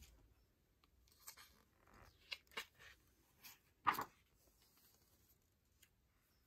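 Glossy photobook pages being turned and smoothed flat by hand: a few soft paper rustles and brushes, the loudest just before four seconds in.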